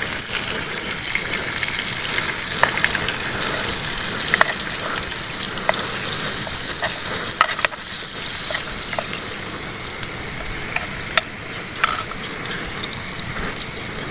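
Food frying in hot oil: a steady sizzle with scattered sharp pops.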